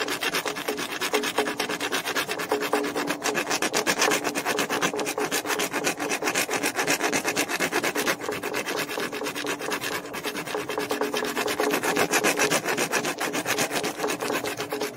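A bare hacksaw blade, held in the hand without its frame, sawing back and forth through the steel tube of a 1988 Honda Prelude's power steering hose in quick, steady, even strokes, with a faint ringing tone from the metal under the scraping.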